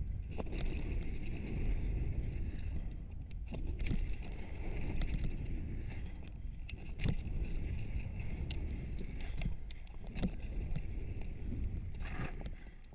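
Mountain bike rolling fast down a gravel trail, picked up by a helmet-mounted camera: a steady rumble of wind on the microphone and tyres on gravel, with frequent sharp clicks and rattles from the bike and the Fox Proframe RS full-face helmet, which rattles under the visor-mounted GoPro. The noise dies down near the end as the bike slows.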